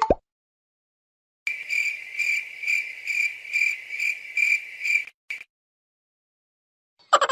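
Cricket chirping sound effect: a high, pulsing chirp repeating about two to three times a second for several seconds, ending with one short last chirp.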